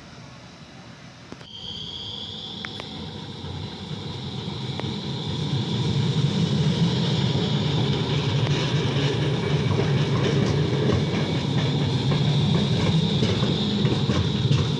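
Electric low-floor tram passing close by. It comes in about a second and a half in with a high steady whine, then grows louder over the next few seconds into a steady rumble of wheels on rail, with scattered clicks.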